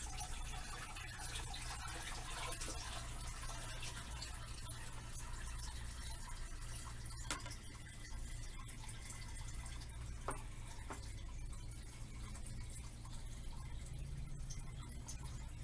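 Water poured slowly from a plastic 5-gallon bucket into an aquarium, a steady splashing stream into the tank water as it is refilled during a water change, with a few small clicks around the middle.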